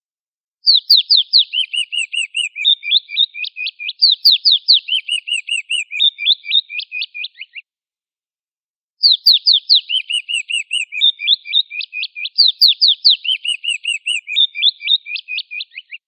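Eagle calling: a long chittering series of quick, high, downslurred notes lasting about seven seconds, then a short pause and the same series again.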